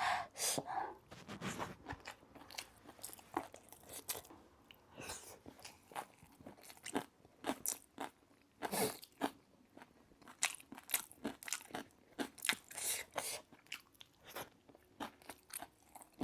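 A person chewing and crunching food in their mouth, with irregular crisp crunches a couple of times a second.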